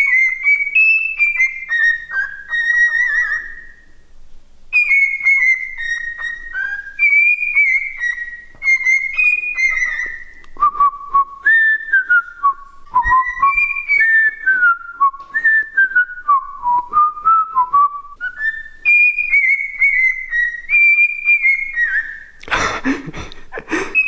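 Cockatiel whistling a tune: phrases of short, clear notes stepping down in pitch, repeated, with a lower run of notes in the middle. A brief loud rustling burst near the end.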